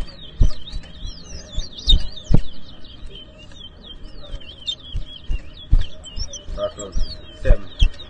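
Towa-towa seed finches singing a fast, continuous run of high chirped and slurred whistles. Several short, dull low thumps fall through it, the loudest about two and a half seconds in.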